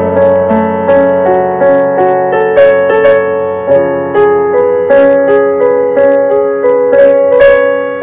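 Background piano music: a gentle melody of single notes, a new one about every half second, over held low notes.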